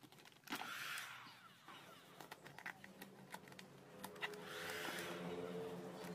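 Handheld electric heat gun blowing: a whirring rush of air with a low motor hum, in two runs, one about half a second in lasting about a second and another from about four seconds in. Light ticks and crinkles of vinyl wrap film being handled come in between.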